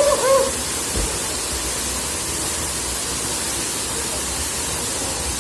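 Sütüven Waterfall's falling water: a steady, even rushing hiss. A short voice sound cuts in right at the start.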